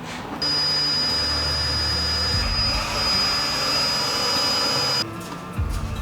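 A shop power tool running with a steady high-pitched whine over a loud hiss, starting sharply about half a second in and cutting off suddenly near the end.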